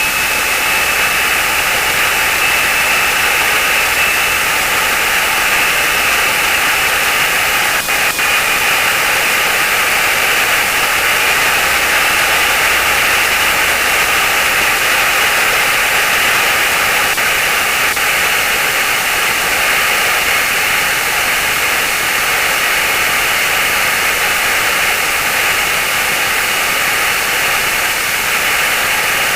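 Steady engine and propeller noise of a Lancair Legacy taxiing, heard through the cockpit intercom as a loud, even hiss with a faint steady whine. A couple of brief clicks come about eight seconds in.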